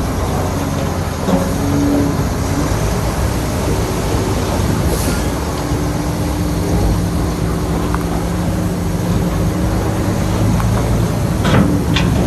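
Shantui crawler bulldozer's diesel engine running steadily while the dozer works, with track clanking and a couple of short, sharp metallic squeaks near the end.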